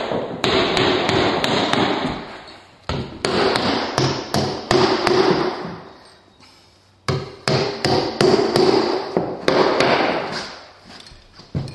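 Drywall hammer driving nails through drywall into the framing: quick runs of sharp blows, about four a second, with three runs broken by short pauses.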